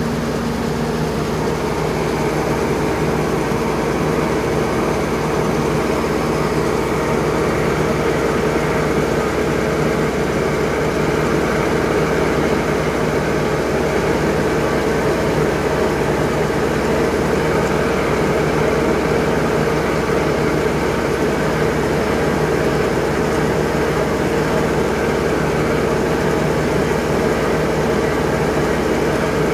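Grain auger and its drive engine running steadily while wheat drains out through the bottom of a truck trailer, a continuous engine-like drone with a little grain rush.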